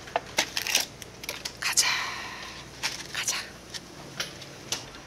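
Crinkling and clicking of plastic and paper food packaging being handled, with a longer rustle about two seconds in.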